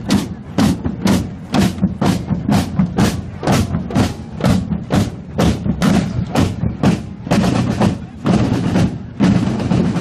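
Marching drums beating a steady march rhythm of about two sharp strikes a second, with a deeper drum underneath.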